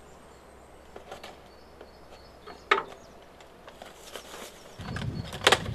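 A knife slitting packing tape on a small cardboard box, then the box being opened: light scraping, a sharp click a little under three seconds in, and louder cardboard rustling and handling noise near the end.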